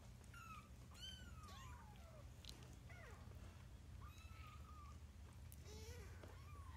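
Newborn kittens mewing faintly: a string of about half a dozen thin, high cries, several sliding down in pitch, the calls of kittens waiting for their absent mother to return to nurse.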